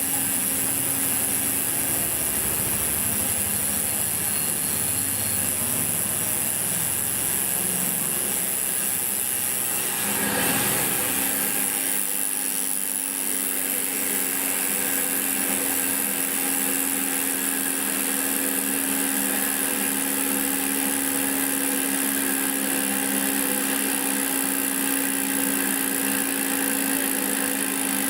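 Koozer XM90 bicycle hub freewheeling as the wheel spins, a steady fast buzz of the freehub ratcheting, from a nearly new hub after about 200 km of riding. It is briefly louder about ten seconds in.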